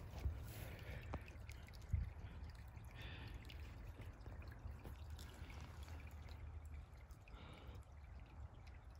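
Shallow creek water trickling faintly over stones, under a steady low rumble, with a few faint knocks, one a little louder about two seconds in.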